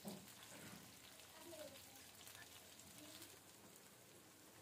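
Masala-coated prawns shallow-frying in oil in a nonstick pan: a faint, steady sizzle with fine crackles as the prawns are turned.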